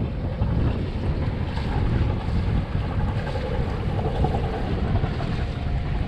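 Wind buffeting the microphone in a rough, gusty rumble, over the wash of choppy water against a small sailboat's hull as it sails.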